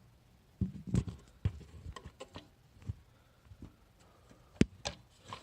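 Irregular clicks and knocks of an electronic safe's faceplate and body being handled and pried at, with the loudest sharp click near the end.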